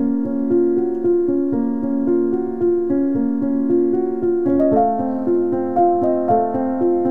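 Background piano music, a flowing run of notes that moves to a new chord about four and a half seconds in.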